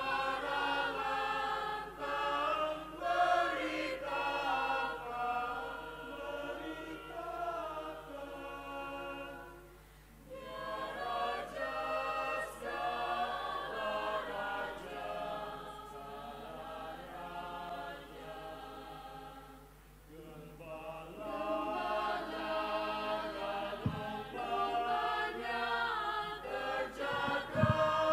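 Mixed choir of male and female voices singing together in parts, with short breaks between phrases about ten and twenty seconds in. Two brief low thumps sound near the end.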